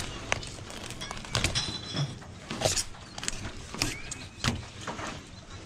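A knife cutting and scraping through a fish on a stainless steel filleting table, with irregular knocks and scrapes as the fish is worked and turned over.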